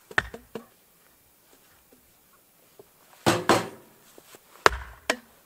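Metal knocks and clanks of a new tent wood stove and its stove pipe being handled and fitted together, with a longer, louder clatter a little past halfway and two sharp knocks near the end.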